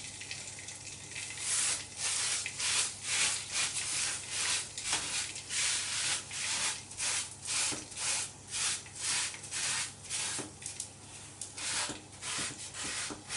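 Paper towel rubbed in quick back-and-forth strokes, about two a second, over the bottom of a greasy roasting pan, wiping out burnt, blackened fat residue.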